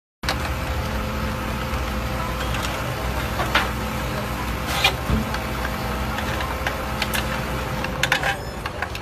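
Steady low rumble of an idling engine, with a few short clicks and knocks scattered through it.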